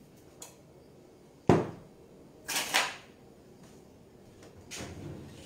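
Kitchen handling noises: a single sharp knock about a second and a half in, then two short clattering sounds about a second later, with a few fainter knocks around them.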